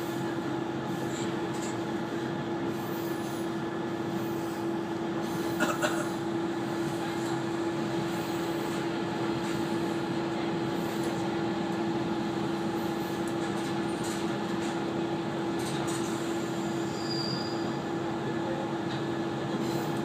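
KiHa 120 diesel railcar heard from inside the car while under way: steady engine and running noise with a constant drone tone. A brief clatter comes about six seconds in.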